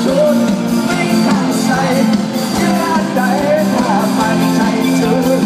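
Live rock band playing, with guitars and singing.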